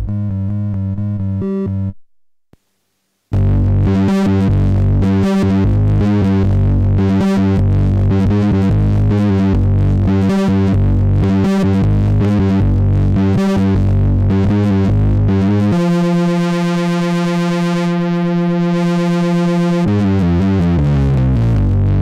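Behringer Poly D analog synthesizer playing a distorted monophonic patch. The notes stop about two seconds in, and after a short gap a rhythmic riff of repeated notes follows. Then comes one long held note, and near the end the pitch slides down.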